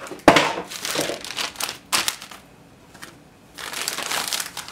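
A cardboard motherboard box being moved aside: a sharp knock about a quarter second in, then rustling and scraping of cardboard and packaging. After a short pause, rustling starts again near the end.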